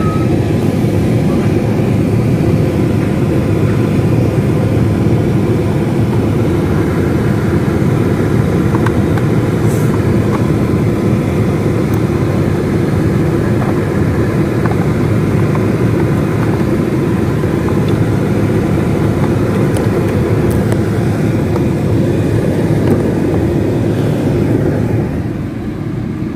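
Steady low rumbling noise of a running car heard from inside its cabin, dropping slightly near the end.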